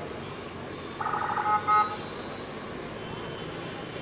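A vehicle horn honks about a second in, a quick run of short toots lasting under a second, over steady street traffic noise.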